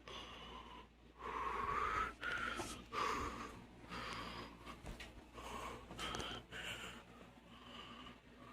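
Heavy, wheezy breathing close to the microphone: the person filming breathing hard in the heat, with repeated breaths about a second each and a whistly tone in them.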